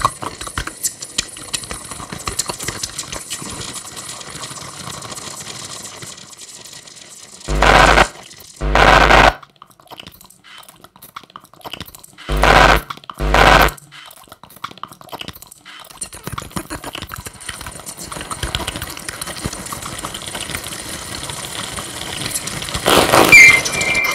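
Live electronic improvisation from a sampler and controller setup: a grainy, crackling noise texture broken by two pairs of short, loud pitched blasts, the first pair about a third of the way in and the second near the middle. A brief high squeal comes near the end.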